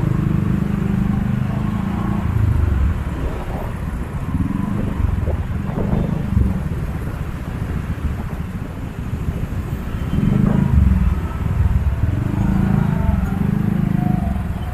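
Street traffic of motorcycles and cars passing, a low engine rumble that swells and fades as vehicles go by.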